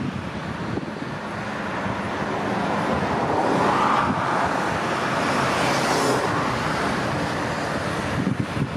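Highway traffic: a steady rush of car tyres and engines, swelling to its loudest in the middle as vehicles pass, then easing. Gusts of wind buffet the microphone near the end.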